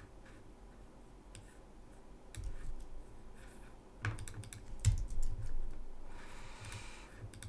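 Computer keyboard typing and clicks in short scattered bursts, heaviest about four to five and a half seconds in, followed by a brief soft hiss near the end.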